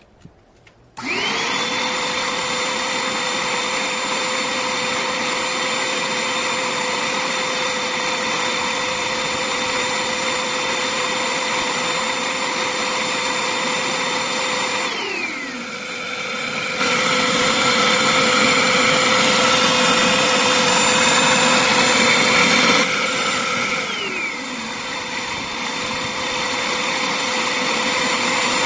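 Electric suction motor switched on about a second in, spinning up with a steady whine and a rushing of air as it draws air through a homemade cigarette-smoking rig. Its whine falls away twice, about halfway through and again near the end, and picks up again louder each time.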